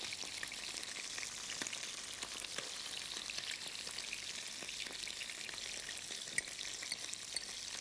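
Food sizzling in a frying pan: a steady crackling hiss with small pops all through.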